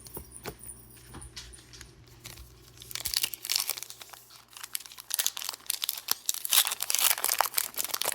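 Foil wrapper of a Pokémon card booster pack being handled, crinkling and tearing open. A few light clicks come first, then dense crinkling from about three seconds in.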